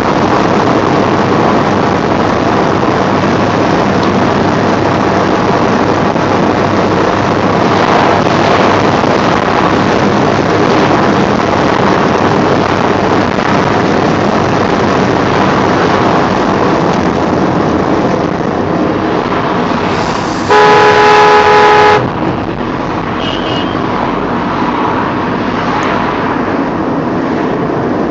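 Steady road and engine noise inside a moving Vauxhall Vectra's cabin, with a loud car horn blast lasting about a second and a half, roughly two-thirds of the way through.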